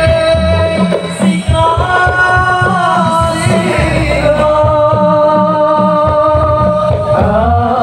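Live Islamic devotional music (sholawat) played over a PA: a group of men singing long, held notes in unison over a steady beat of drums.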